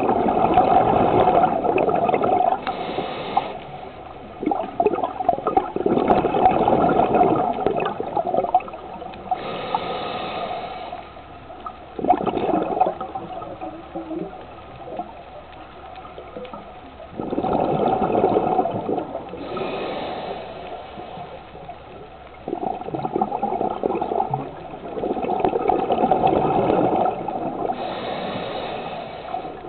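Water rushing and bubbling in surges of a few seconds each, with quieter gurgling in between.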